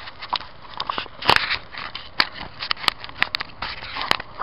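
Irregular sharp clicks and crackles of handling noise on a camera microphone fitted with a home-made foam pipe-insulation wind filter, over a light hiss. The loudest click comes about a second in.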